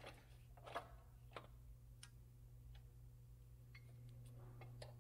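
Near silence over a steady low hum, broken by a few faint clicks and light taps of hands handling metal parts at a motorcycle's rear shock mount, the loudest just under a second in.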